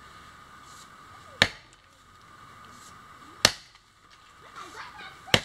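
Axe chopping into wood: three sharp chops, about two seconds apart.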